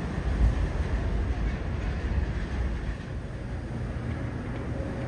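New York City subway train running on the elevated steel structure: a steady low rumble that eases a little about three seconds in.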